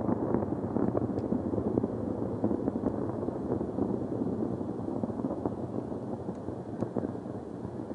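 Proton rocket's first-stage engines heard from far off during ascent: a dense crackling rumble that slowly fades as the rocket climbs away.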